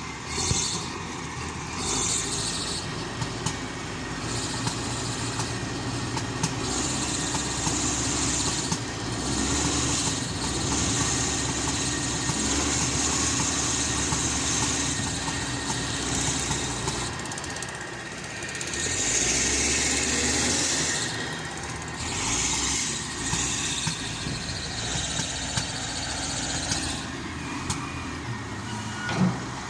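Engine of a heavy earth-moving machine running while it works, its level rising and falling with the load. A single short thump near the end.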